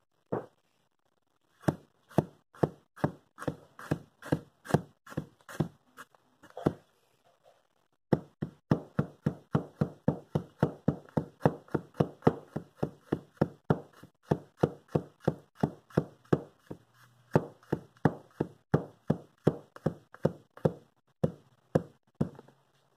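Heavy 6 lb cleaver chopping garlic on a wooden cutting board: a string of sharp knocks as the blade strikes the board, a short pause about seven seconds in, then steady rapid chopping at about three strokes a second.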